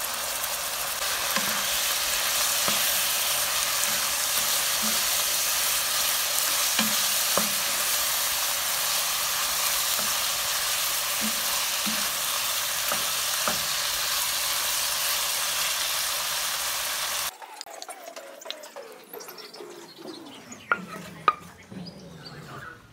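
Chicken pieces frying in oil in a pan: a steady sizzle with faint spatula taps as they are stirred. About three-quarters through the sizzle cuts off suddenly, and a spatula scrapes and clacks twice as the chicken is served onto a plate.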